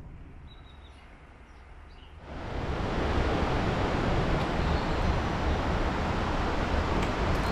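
Quiet fading ambience, then a little over two seconds in a steady rushing sound of flowing river water sets in and holds.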